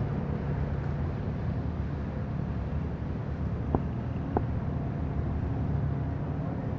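Steady low engine hum, with two short sharp clicks near the middle.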